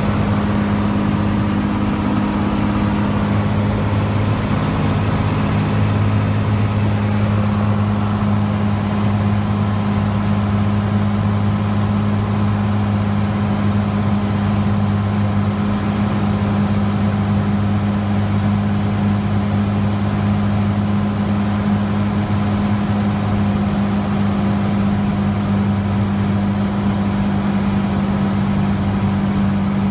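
Cessna 182T's six-cylinder Lycoming IO-540 engine and propeller droning steadily in flight, heard from inside the cabin. The tone shifts slightly in the first several seconds, then holds steady.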